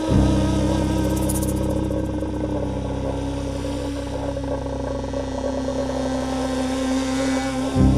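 Ethno-folk instrumental music: a kyl-kobyz, the Kazakh bowed horsehair fiddle, playing over a deep, steady low drone that comes in sharply at the start and is sounded again just before the end.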